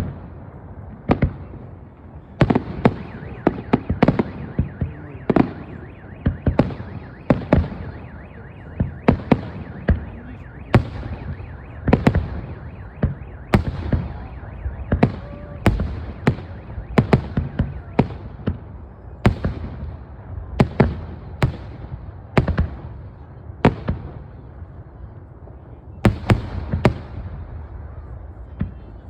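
Aerial fireworks shells bursting in a large display: sharp bangs about once a second, often in quick pairs and clusters, each trailing off in a short echo over a steady low rumble.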